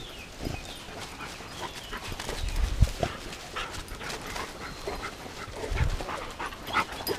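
Scent hounds yelping and rustling through dry leaves and bracken, with hurried crunching footsteps. Two heavier thumps come about three and six seconds in.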